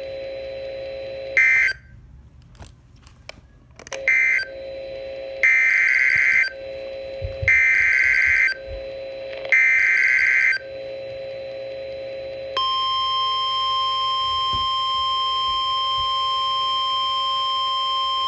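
Emergency Alert System signal on NOAA Weather Radio. First a couple of short buzzy digital data bursts with a few clicks between them, then the SAME header sent three times as one-second data bursts about a second apart. About twelve seconds in, the steady 1050 Hz warning alarm tone begins, announcing a new warning.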